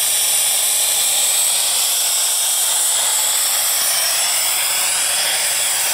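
Pop-off (safety) valve on a vertical fire-tube boiler venting steam in a loud, steady, high hiss: the boiler is at its 75–80 psi blow-off pressure.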